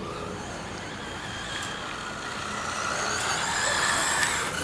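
13.5T brushless electric motor of an RC10 Gold Tub 1/10 buggy whining under throttle, rising slowly in pitch and growing louder as the buggy nears.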